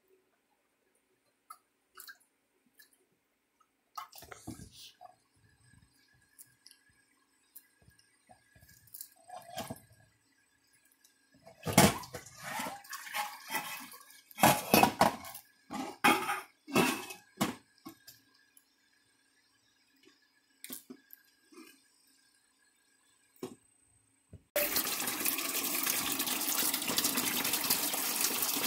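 Water splashing and a metal bowl knocking in a stainless steel kitchen sink as a macaque plays in it, in scattered splashes that grow dense and loud about 12 to 18 seconds in. About 25 seconds in, the kitchen faucet comes on and runs steadily into the sink.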